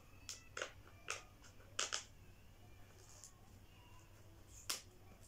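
A small white cardboard box being opened by hand and a paper insert slid out: a handful of short, sharp cardboard-and-paper clicks and crackles, the loudest about two seconds in and again near the end.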